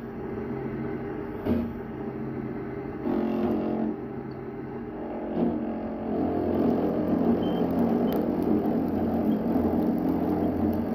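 Wadkin pillar drill running with a cutter routing a trench across a wooden stair stringer: a steady motor hum under the noise of the cutter chewing through the wood. The cut gets heavier and louder from about six seconds in.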